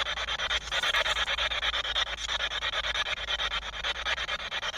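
SB7 spirit box sweeping through radio stations: a hiss of static chopped into rapid, even pulses.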